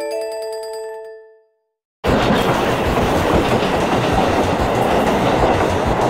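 A short chime jingle of bright, marimba-like notes rings out and fades in the first second and a half. After a moment of silence, from about two seconds in, comes the louder, steady rumble and rail clatter of a JR Hokkaido KiHa 40 diesel railcar heard from inside the car as it runs into a station.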